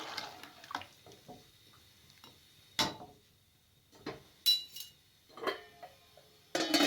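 Metal utensil clinking and knocking against a metal cooking pot, a few separate strikes. One, about four and a half seconds in, rings briefly.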